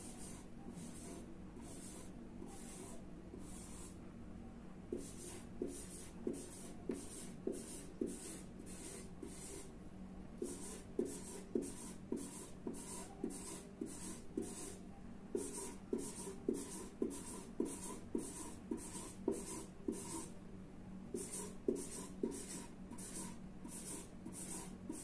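Marker pen drawing small ovals: a run of short scratching strokes, about two or three a second, which get louder about five seconds in.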